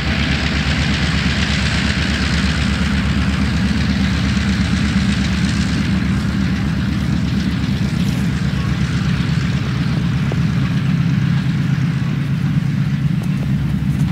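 Diesel locomotive of a passing passenger train running steadily, a deep engine drone with a fast even pulse under a hiss of train noise.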